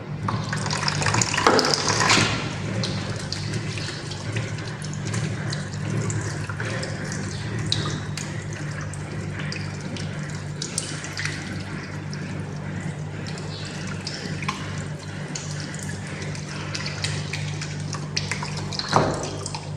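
Water running from a tap and splashing over hands as soap is rinsed off, louder in the first couple of seconds, over a steady low hum. A short sharp sound near the end.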